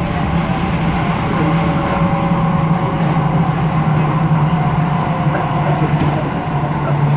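MTR K-Train electric multiple unit running along the line, heard from inside the passenger car. A steady rumble of the running gear carries a low hum and a faint higher tone.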